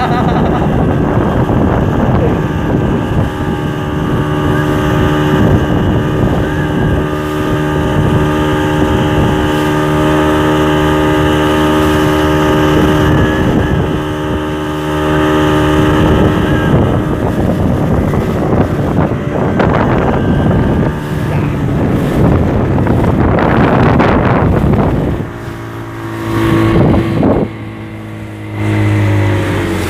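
Tow speedboat's engine running steadily at speed, with wind buffeting the microphone and the rush of water. About 25 seconds in the engine sound stops and a quieter mix of water and other sounds follows.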